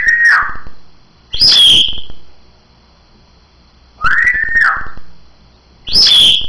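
African grey parrot whistling a two-part phrase twice: a pitched whistle that rises, holds and falls, then a harsher, higher call, with the pair repeated about four seconds later.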